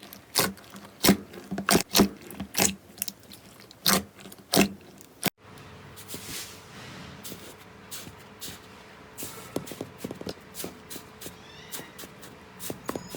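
Slime being squished and pressed by hand, giving a run of sharp crackling pops for about five seconds. After an abrupt cut it changes to quieter, softer squishing with occasional faint clicks.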